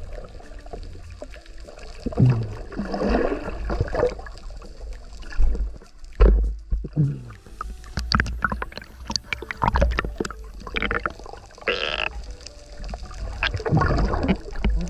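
Sea water around a camera dipping under and above the surface: sloshing and bubbling, with irregular splashes and low thumps of water against the housing.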